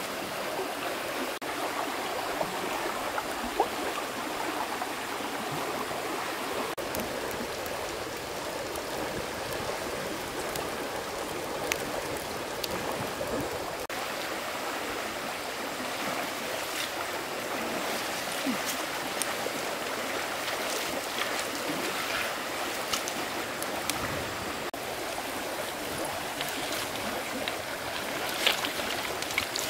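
Steady rushing noise of flowing water, with a few short sharp clicks scattered through it.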